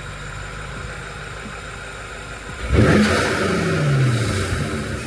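BMW F90 M5's twin-turbo V8, fitted with Lusso Performance intakes and MSR mesh aluminium filters, idling steadily, then revved sharply about two and a half seconds in, its pitch climbing fast and falling back slowly. Another rev starts near the end.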